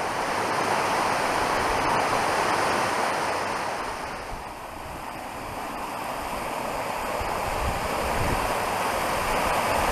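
Steady rushing noise of falling water, easing a little midway and then building again, with low wind buffeting on the microphone.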